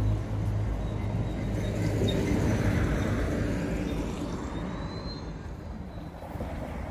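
A motor vehicle driving past: its engine hum fades just after the start, leaving road and tyre noise that swells briefly and then slowly dies away.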